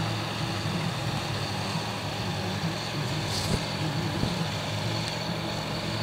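Steady low drone of boat engines running on the river.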